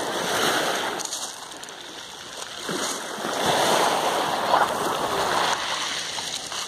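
Small waves breaking at the edge of a pebble beach and washing up over the shingle, the surge swelling about half a second in and again, louder, from about three seconds in.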